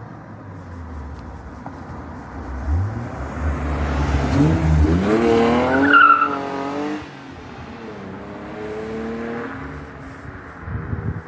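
A car accelerating hard past, its engine note climbing steeply and loudest about six seconds in before dropping away. A second, quieter car follows a couple of seconds later.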